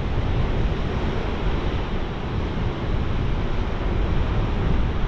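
Surf breaking on a shingle beach with wind buffeting the microphone: a steady rushing noise with a heavy low rumble.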